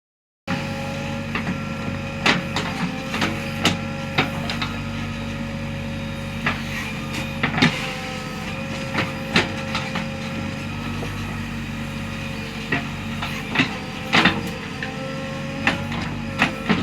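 JCB backhoe loader's diesel engine running steadily while it digs, with sharp knocks at irregular intervals from the bucket and arm.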